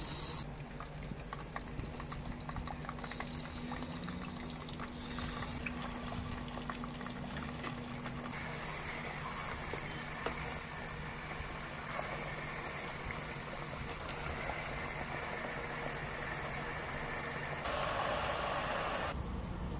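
Chicken pieces deep-frying in a pot of hot oil: a steady sizzle with many small crackles and pops that becomes a denser, more continuous sizzle about eight seconds in. Near the end comes a louder burst of sizzling as raw potato chunks go into the oil.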